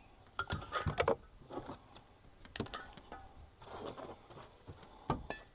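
Small metal propane canisters being lifted out and set down: several separate knocks and clinks of metal, with rubbing and rattling between them.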